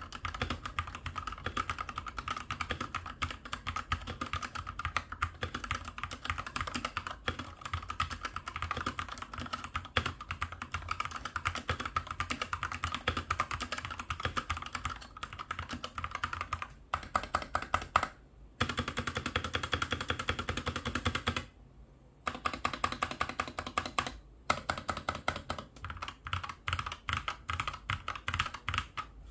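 Fast, continuous typing on a SteelSeries gaming keyboard: a dense run of rapid key clicks, broken by a few short pauses.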